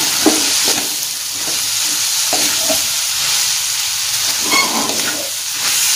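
Fried rice sizzling in a hot wok while a wooden spatula stirs and scrapes through it: a steady frying hiss with irregular scraping strokes.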